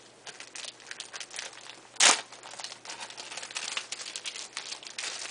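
Plastic bag packaging crinkling and rustling as it is opened and handled by hand, with one sudden loud crinkle about two seconds in.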